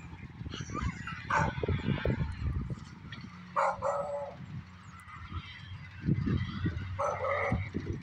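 Wind buffeting the microphone in gusty low rumbles, with an animal giving three short, loud calls spread through, a few seconds apart.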